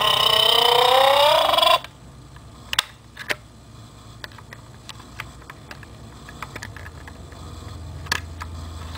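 Recorded sound effect from a toy Road Rage megaphone's small speaker: a loud, drawn-out pitched tone that slides down and back up, then stops abruptly just under two seconds in. After it come a few sharp plastic clicks from the battery compartment cover being opened.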